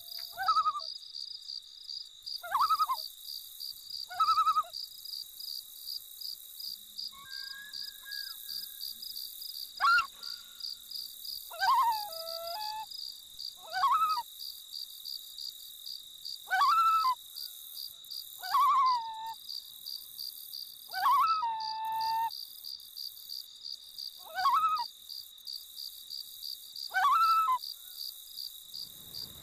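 Common loon giving about a dozen short calls, each rising then falling in pitch, spaced a couple of seconds apart. A steady high insect trill runs underneath.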